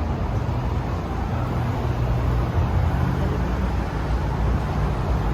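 Steady low rumble and hiss of road traffic on a bridge.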